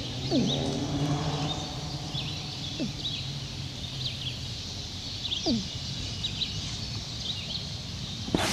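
Small birds chirping repeatedly in the trees over a steady outdoor background hum, with three short low sounds that fall in pitch. A sharp knock near the end.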